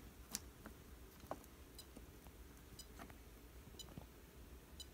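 Near silence: room tone with scattered faint clicks and a faint short tick about once a second.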